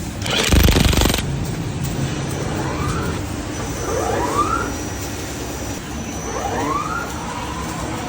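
Milling machine running during the cutting of a press-screw flight: a steady machine hum, a loud burst of noise about half a second in, and two short rising squeals later on.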